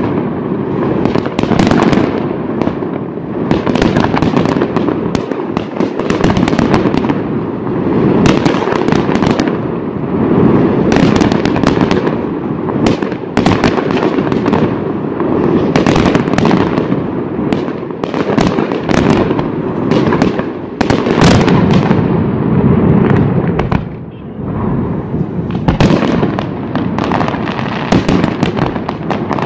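Aerial fireworks display: shells bursting in a dense, continuous barrage of sharp reports and crackle over a constant rumble, easing briefly about 24 seconds in.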